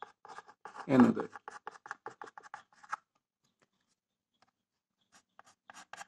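Chalk scratching and tapping on a blackboard as words are written: a quick run of short strokes over the first three seconds, a pause, then a few more strokes near the end.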